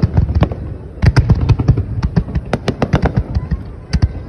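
Aerial firework shells bursting in a rapid finale barrage: an irregular string of sharp bangs, many overlapping, thickest from about a second in.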